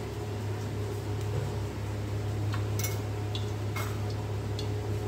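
A steady low hum with a few small ticks and two louder sharp clicks, about three and four seconds in.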